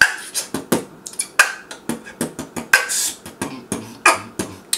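Beatboxing: a steady rhythm of mouth-made clicks, kick-like thumps and hissy snare hits, about four or five a second, keeping the beat between sung lines.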